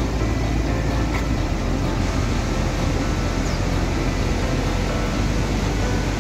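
Fast river rushing steadily, a loud even wash of water noise.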